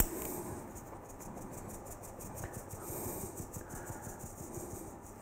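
Dry ingredients (plain flour, sugar, salt, raising agents) being sifted through a metal mesh sieve into a mixing bowl: a faint, steady soft rustle of the sieve being shaken and worked, with small light taps.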